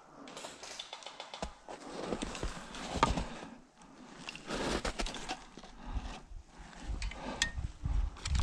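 Footsteps of a player moving on foot, with irregular thumps and clicks of gear and handling noise on a body-worn camera.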